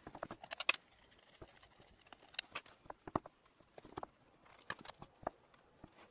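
Faint, irregular light clicks and taps of an Allen key and small screws being handled at a chainsaw's plastic housing, a quick cluster of them in the first second and then single ticks.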